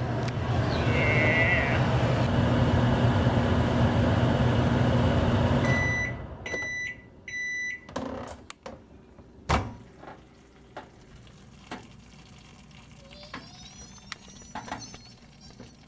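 Microwave oven running with a steady hum that stops about six seconds in, followed by three short beeps, the end-of-cycle signal. A few clicks and a knock come after.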